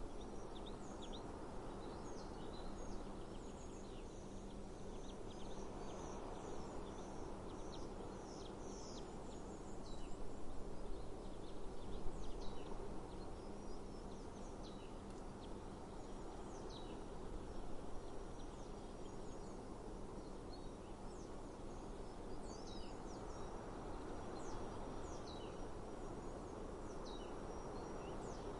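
Small birds chirping again and again in short, high notes, many sweeping downward, over a steady outdoor background noise.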